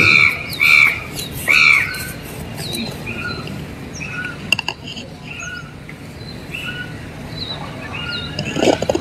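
Birds calling over and over with harsh, arched squawks: three loud calls in the first two seconds, then softer calls that keep coming every half second or so.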